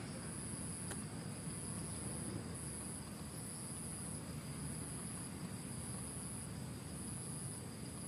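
High-pitched insect trilling, coming in stretches of about a second with short breaks, over a steady low rumble.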